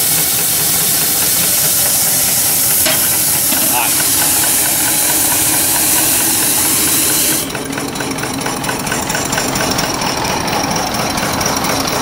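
Steady loud steam hiss from a homemade wood-fired vertical boiler's steam blower, which drives a strong draft of air through the firebox; it is shut off suddenly about seven seconds in, leaving a quieter fast, even ticking.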